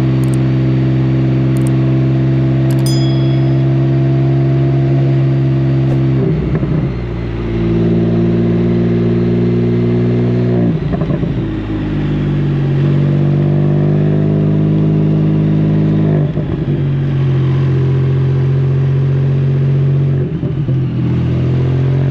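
Can-Am Spyder F3's three-cylinder engine running under way at a steady pull, with brief dips in loudness about a third of the way in, around halfway, about three quarters in and near the end, where gears change. A few sharp high clicks sound in the first three seconds.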